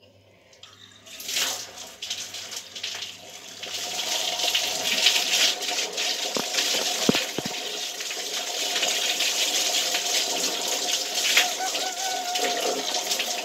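Shower water running onto a person's soapy head and back during a hair wash. It comes in about a second in, builds, and is a steady rush from about four seconds on.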